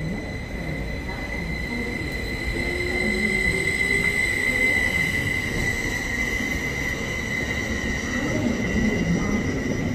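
A train moving through the station with a steady high-pitched squeal over a low rumble, the squeal swelling about a third of the way in.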